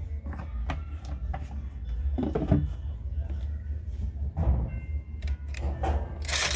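Scattered knocks and scrapes of a rolling pin rolling out chapati dough, over a steady low hum, with a brief hissing rustle near the end.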